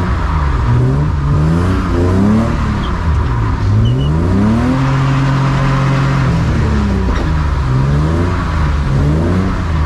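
BMW E36 drift car's engine revving up and down repeatedly, its pitch rising and falling over and over, held level for a moment about halfway through.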